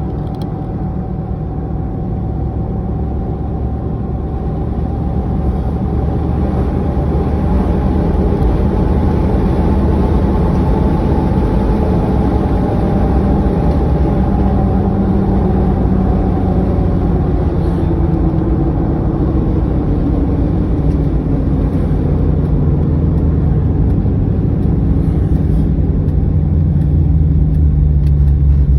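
Newly installed vehicle engine running steadily, its pitch drifting slightly, getting gradually louder over the first ten seconds and again near the end.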